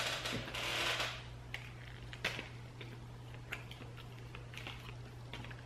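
Quiet eating sounds from biting and chewing a brisket and cheese sandwich: a soft rustle in the first second as the sandwich is handled, then faint scattered clicks of chewing, over a steady low hum.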